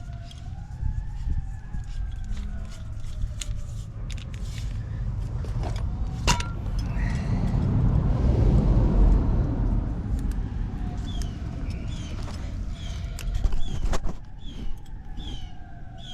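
A vehicle passing, loudest about halfway through, with a slow rising-and-falling whine, a few scattered clicks, and short bird chirps repeating near the end.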